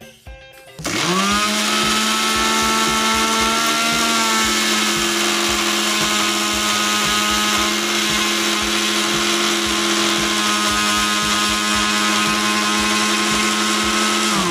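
Electric mixer-grinder motor grinding chillies, coriander, ginger and garlic with a little water into a wet chutney paste. It spins up about a second in, runs at a loud, steady pitch, and winds down at the end.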